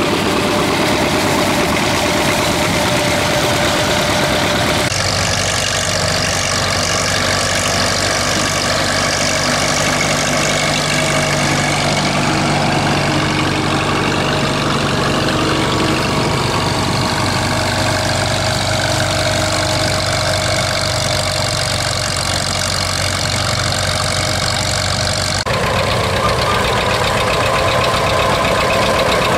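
Antique farm tractor engines running steadily under load as they pull moldboard plows through soil. The engine sound changes abruptly about five seconds in and again near the end.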